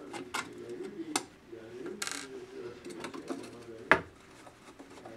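Sharp metallic clicks and clinks from handling an aluminium LED street light housing and a screwdriver, with a short scrape about two seconds in and the loudest click just before four seconds.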